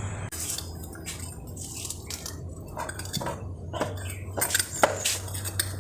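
Metal motorcycle parts clinking and knocking as the rear wheel is handled and fitted back onto the bike: scattered short taps, busier in the second half, over a steady low hum.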